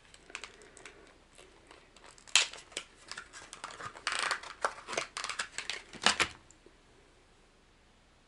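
Hands opening a crackling plastic lure package and pulling out a soft plastic bait: a run of sharp crackles and clicks, loudest a little after two seconds and again near six seconds, where it stops.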